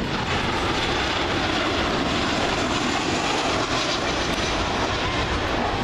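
Boeing 737-800 jet airliner passing low on final approach with its landing gear down; its twin jet engines give a steady, rushing noise.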